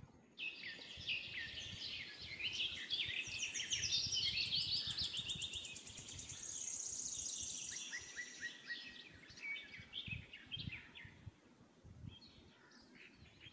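Several birds chirping and singing together: a dense run of quick high chirps and down-sliding whistled notes, with a fast high trill in the middle, thinning out near the end.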